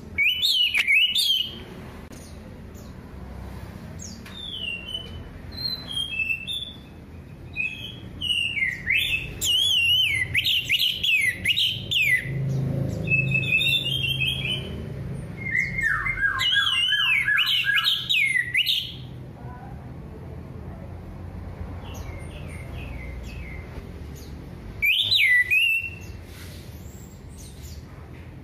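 Orange-headed thrush (anis merah) singing: loud, varied whistled phrases in bursts of one to three seconds, separated by short pauses, over a steady low background hum.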